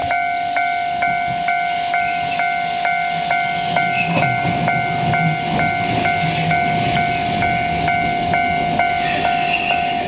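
A Japanese railway crossing warning bell ringing over and over, about two strikes a second, over a steady tone, while a Keifuku Randen Mobo 611 tram rolls into the platform with a low rumble and comes to a stop. A hiss rises near the end as the tram halts.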